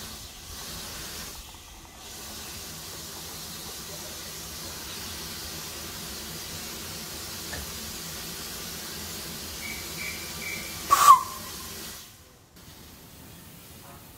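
Steam hissing from the cylinder drain cocks of the saddle tank steam locomotive Agecroft No.3 as it gets under way. A short, loud, sharp burst stands out near the end.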